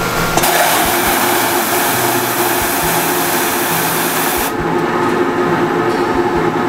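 Jacket form finisher (steam-air mannequin press) blowing steam and air through a suit jacket from the inside, drying out the excess moisture. A loud steady hiss cuts off about four and a half seconds in, leaving the machine's blower running as a lower steady drone.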